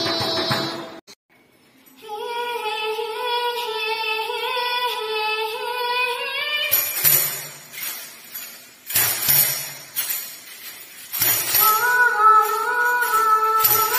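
A girl's solo singing voice with a hand tambourine. After a brief break about a second in, she sings a few held notes alone, then the tambourine is struck and shaken several times with ringing jingles, and the singing comes back over it near the end.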